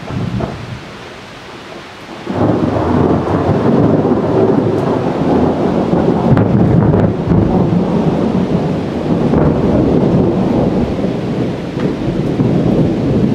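Thunder: about two seconds in it sets in suddenly and rumbles on loudly, with a few sharper crackles partway through. Steady rain falls throughout.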